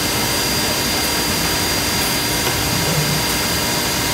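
Multi-spindle CNC router running: a loud, even rushing noise with several steady whining tones held at fixed pitches.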